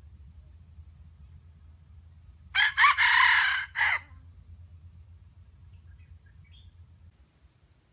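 Red junglefowl rooster crowing once, a loud crow of about a second and a half in three parts: a short opening note, a longer middle and a short clipped end. A faint low steady hum runs underneath.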